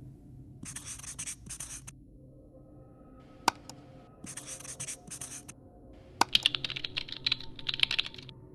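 Sound effects of a marker scratching out handwriting in short strokes, a single mouse click about three and a half seconds in, then rapid computer keyboard typing near the end.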